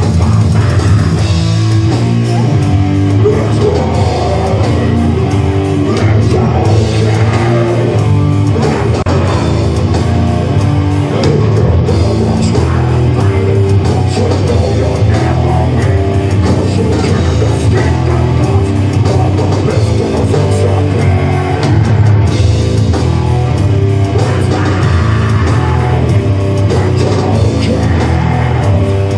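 Heavy metal band playing live, loud and without a break: distorted electric guitars over bass and drum kit.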